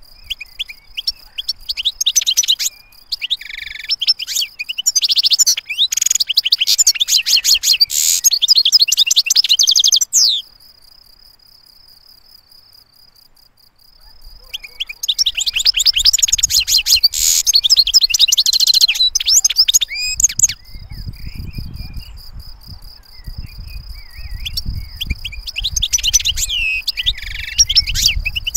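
European goldfinch singing: fast, clean twittering and trilled phrases in long bursts, with a pause of a few seconds about a third of the way in before the song resumes.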